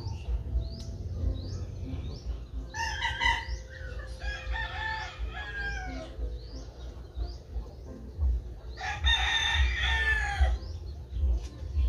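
Roosters crowing several times, with one long crow about nine seconds in, while small birds chirp throughout.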